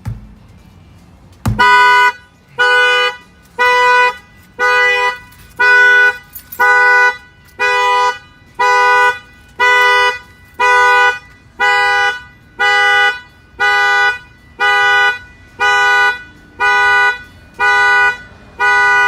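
A single sharp knock, and the Infiniti Q50's factory alarm goes off, tripped by an add-on shock sensor: the car's two-note horn honks in steady pulses about once a second, each a little over half a second long.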